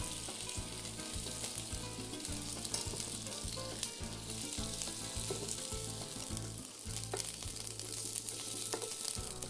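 Chicken pieces sizzling in hot oil in a frying pan as they are seared until lightly browned.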